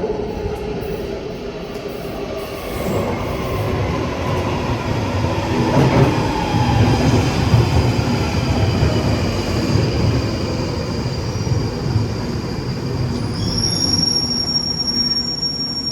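London Underground 1995 Stock train in motion: continuous rumble of the wheels on the track under a motor whine that slowly falls in pitch. A high steady wheel squeal sets in near the end.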